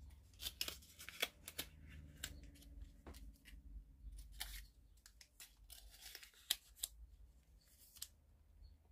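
Paper cupcake cases crinkling as small cakes are handled and pressed into them, in scattered short rustles with light clicks and taps.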